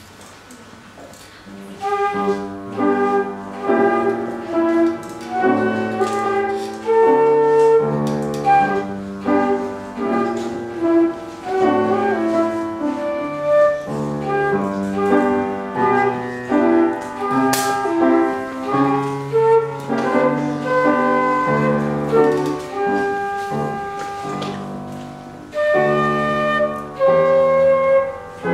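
Transverse flute playing a melody with piano accompaniment, starting about two seconds in, note by note with short breaks between phrases.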